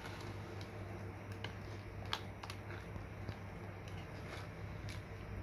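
Metal spoon stirring thick coconut milk with banana and sago in a metal pot, giving irregular light clicks and scrapes against the pot, over a steady low hum.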